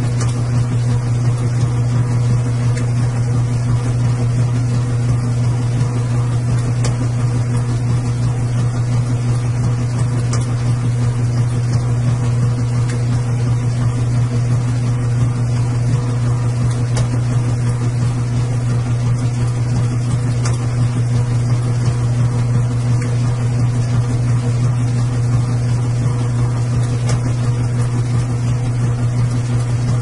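Washing machine running with a steady, unchanging low motor hum and a few faint ticks.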